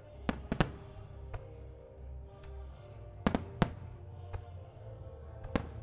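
Aerial firework shells bursting in sharp bangs, in three pairs about three seconds apart, the two bangs of each pair a fraction of a second apart, over music playing along with the show.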